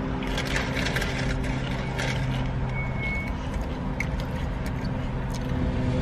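Steady low hum of a car engine idling, heard from inside the cabin, with scattered clicks and rustles as food and wrappers are handled. A brief high tone sounds about three seconds in.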